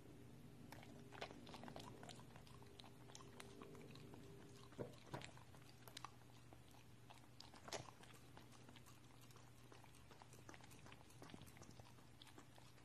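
A corgi licking and chewing peanut butter: faint, scattered wet smacks and tongue clicks, with a few sharper ones about five and eight seconds in.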